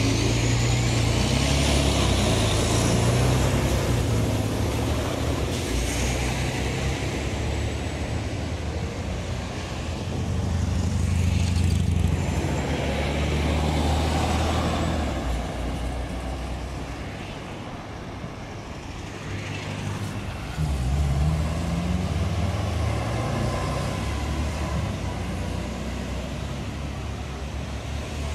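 Engines of articulated city buses and other road traffic passing along a street, swelling and fading as vehicles go by. About twenty seconds in, one engine's note rises as it speeds up.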